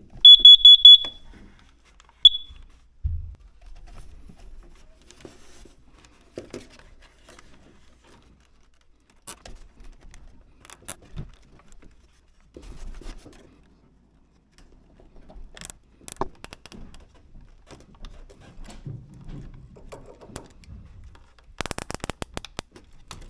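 A gas sensor's alarm sounds a quick run of loud, high-pitched beeps, then one more beep about two seconds in. Faint handling noises follow, and near the end a rapid run of clicks as a plastic cable tie is ratcheted tight.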